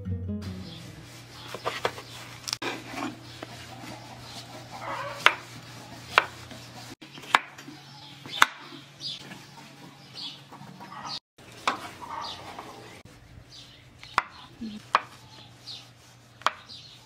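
Knife chopping food on a cutting board: single sharp chops at an uneven pace, about one or two a second.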